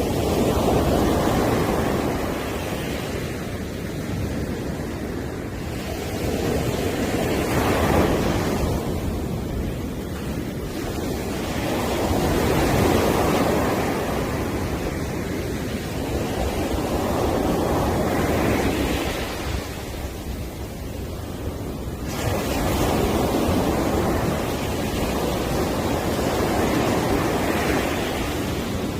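Sea waves breaking and washing up a beach, the surf swelling and fading every four to six seconds.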